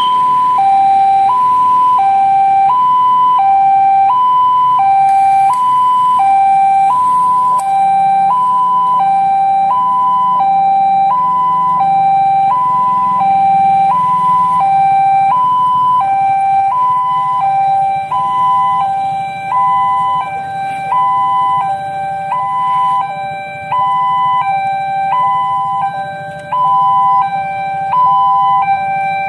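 Railway level-crossing warning alarm sounding with the barrier down: an electronic two-tone hi-lo that alternates about once a second. From about halfway a second alarm with a lower pair of tones joins, out of step with the first.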